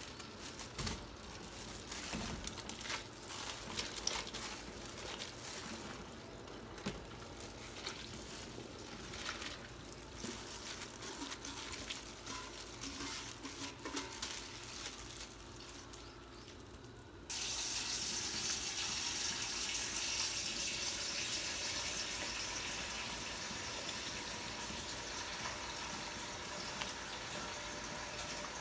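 Kitchen clatter, a scatter of clicks and knocks of dishes and utensils. About two-thirds of the way through, a steady rush of tap water starts suddenly and runs on.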